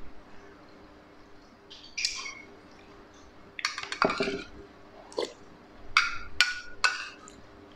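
Metal spoon clinking and scraping against a small ceramic bowl while eating: a handful of short clinks with brief ringing, several in quick succession near the end.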